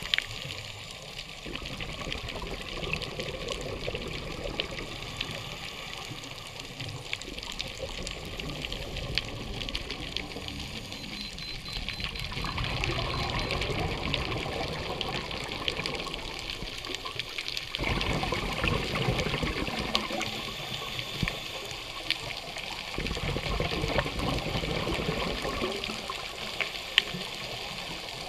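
Underwater ambience through a camera's waterproof housing: a steady rushing water noise with scattered faint clicks, swelling louder for a few seconds at a time.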